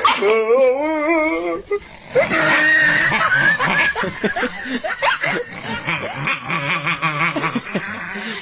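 People laughing, after a long wavering cry in the first second and a half.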